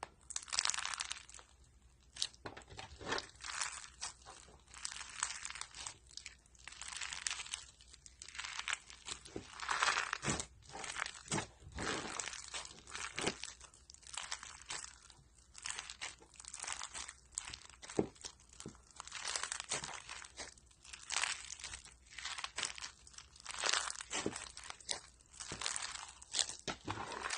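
Slime being squeezed and worked by hand, giving irregular crackling and crunching sounds with many small pops and clicks.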